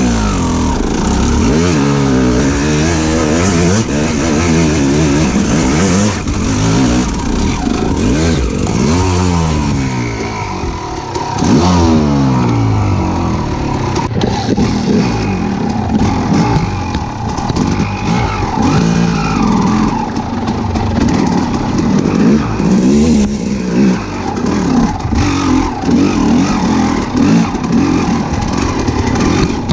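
Motor engines revving up and down over and over, the pitch climbing and dropping every second or two.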